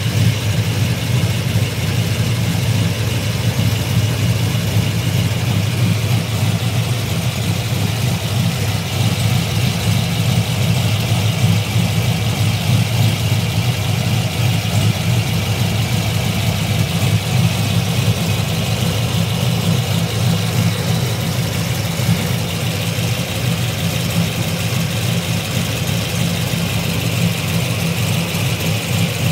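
GM LS3 6.2-litre V8 with an aftermarket street cam idling steadily, heard from underneath by the long-tube headers' catalytic converters. A light tick runs with the idle, which the owner wonders is lifter tick but thinks is probably normal.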